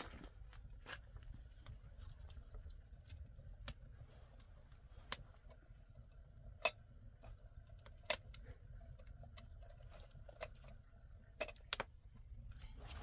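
Irregular light clicks and taps, with a few sharper knocks, over a low steady rumble.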